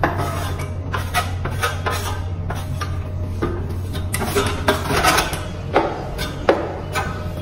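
Steel plastering trowel scraping wet skim-coat compound off a metal hawk and spreading it on a wall, in a string of short irregular scrapes with light metal clicks.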